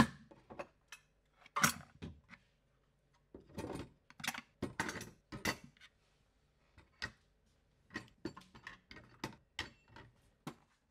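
Irregular runs of short knocks and clinks as 3D-printed plastic trays are set down on a counter and on top of an espresso machine and metal barista tools are dropped into them, the sharpest knock right at the start.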